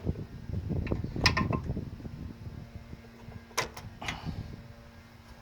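Scattered clicks and knocks of tools and metal engine parts being handled while the carburetor is taken off a lawn aerator's small gasoline engine, with a faint steady hum underneath from about two seconds in.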